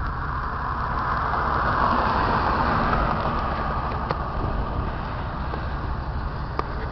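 Road traffic noise, a vehicle passing that swells about one to three seconds in and then fades, over a steady low rumble.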